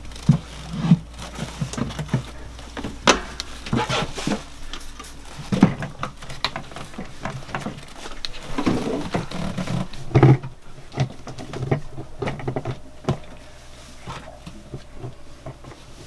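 Irregular knocks, clunks and rustles of tools, rags and plastic oil buckets being handled, the loudest knock about ten seconds in, over a steady low hum.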